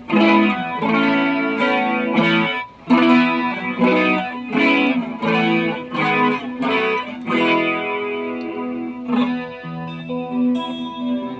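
Electric guitar played through a pedalboard of effects. A run of picked notes and chords comes about every half second, then gives way to longer ringing chords in the second half.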